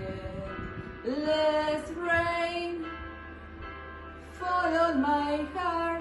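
A sung song chorus: a solo voice holding long notes in three phrases over soft, steady accompaniment.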